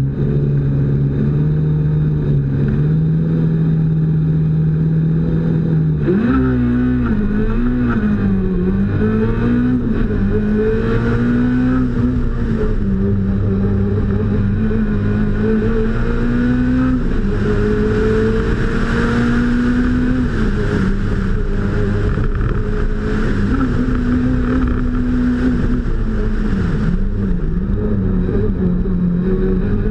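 Peugeot 106 Kit rally car's engine, heard onboard, held at steady revs for about six seconds, then revving hard and rising and falling in pitch through gear changes and corners on a special stage.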